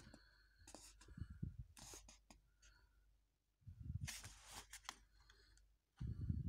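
Faint rustling of a paper comic book's pages under a hand, in a few short bursts, with a louder handling bump near the end as the book and phone are moved.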